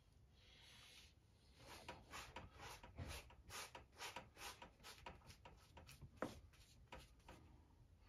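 Faint, quick rubbing strokes of a gloved hand smearing acrylic paint across a stretched canvas, about three strokes a second, starting a little over a second in and stopping shortly before the end.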